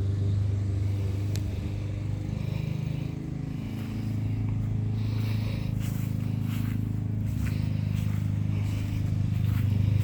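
An engine idling steadily with an even, unchanging low hum, with a few light scrapes and clicks near the middle and end.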